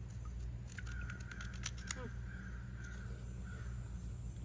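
Crisp crunches from biting and chewing a puffed roasted corn stick, clustered about one to two seconds in, over a steady low hum. A thin, steady high tone runs alongside for a couple of seconds.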